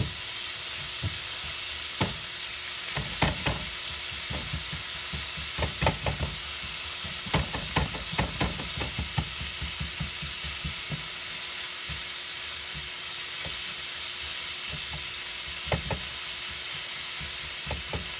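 Ground pork sizzling steadily in a hot skillet while a silicone spatula stirs and breaks it up, with runs of short knocks and scrapes against the pan from about two to nine seconds in and again near the end.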